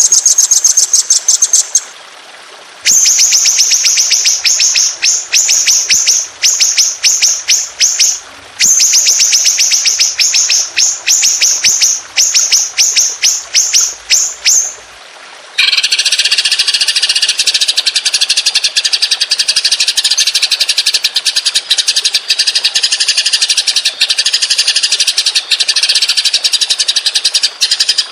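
Recorded songbird song for masteran, cage-bird training: long rolling trills of rapid repeated high notes in phrases of several seconds with short pauses between them. About halfway through it changes to one dense, buzzy trill that runs unbroken to near the end.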